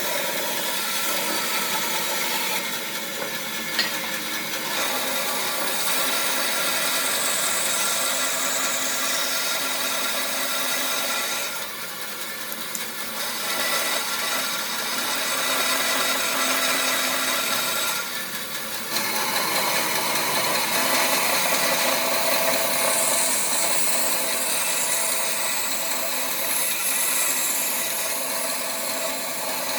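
A power tool working wood, running steadily with a continuous abrasive, grinding or sawing noise that eases off briefly twice.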